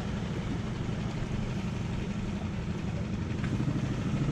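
Outboard motor of an inflatable dinghy running steadily, pushing the boat slowly along.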